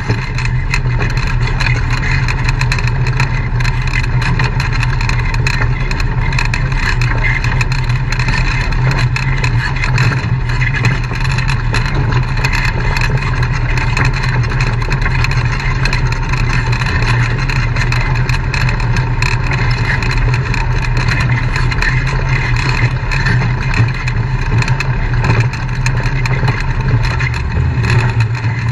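Off-road vehicle engine running steadily at low speed, a constant low drone, with frequent small rattles and knocks as it crawls over a rough, rutted trail.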